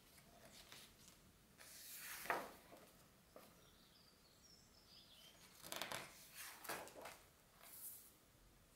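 Pages of a hardcover art book turned by hand: a soft paper swish about two seconds in, then a longer run of page rustles around six to seven seconds and a last small rustle near the end.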